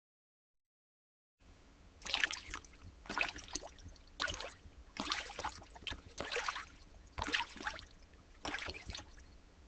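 Slimy, wet squelching sound effect, like squid writhing in a holding tank: about seven squishy bursts, roughly one a second, over a faint hiss, beginning about a second and a half in.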